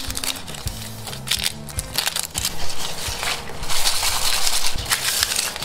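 Dry, papery onion skins crackling and rustling as they are peeled off and handled, loudest in a dense run of crackles near the end.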